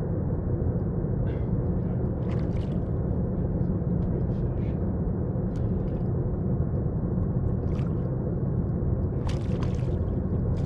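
A hooked smallmouth bass splashing at the water's surface beside the boat about nine seconds in, over a steady low rumble.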